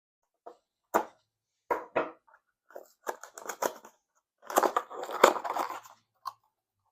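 Packaging of a hand deburr tool set being opened by hand: a few sharp snaps and clicks, then a louder stretch of crackling and tearing about halfway through.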